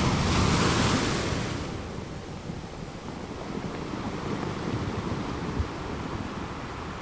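Ocean waves: one wave washes in loudly over the first second or so and dies away, leaving a low, steady surf rumble.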